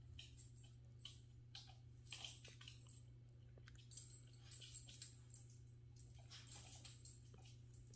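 Faint rustling and scuffing of a small puppy's fabric pet bed and its claws on a hardwood floor as the puppy humps and drags the bed, coming in short bursts, loudest about four and a half seconds in, over a steady low hum.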